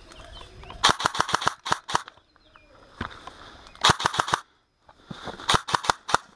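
Airsoft guns firing three rapid bursts of sharp clicking shots.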